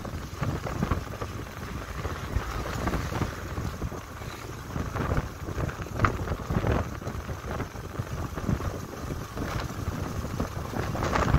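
Wind buffeting the microphone on a moving motorcycle, a gusty low rush with road noise underneath, rising and falling in strength.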